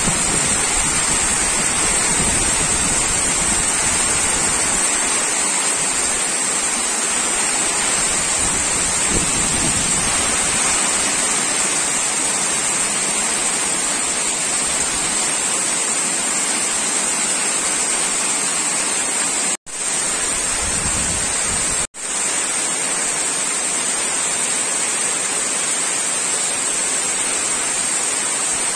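Heavy rain pouring onto a waterlogged lawn and standing puddle water: a steady, dense hiss of splashing drops. The sound cuts out for an instant twice, about two-thirds of the way through.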